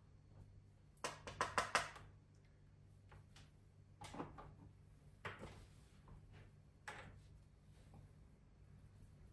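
Handling noises of a small photo frame at a desk: a quick run of sharp clicks and knocks about a second in, then a few softer knocks as the frame is set down on the desktop.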